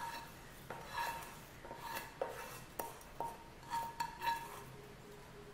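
A metal spoon clinking and tapping against a metal cooking pan as roasted vermicelli and dry fruits are added to boiling milk. There are about ten irregular clinks, each with a brief metallic ring.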